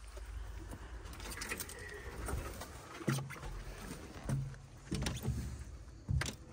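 An old wooden door being handled, pulled open and stepped through: a few dull knocks and thuds over a low rumble.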